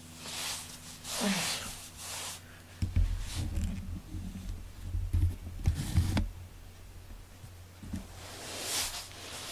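Handling noise as the camera is moved: scattered soft rustling hisses, with a stretch of low bumps and rumble in the middle.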